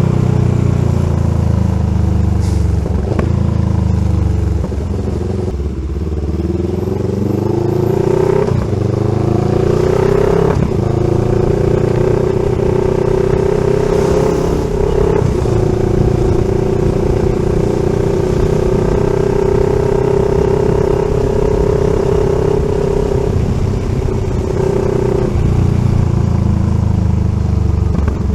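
CFMoto 700 CL-X Sport's parallel-twin engine running through an SC-Project slip-on exhaust while riding. The engine note drops and climbs again over the first ten seconds or so, then holds a steady cruising pitch.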